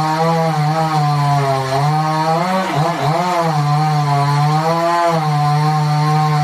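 Two-stroke chainsaw running at high revs while cutting wood. The engine pitch dips and wavers under load a little before halfway, recovers, and sags briefly again near the end.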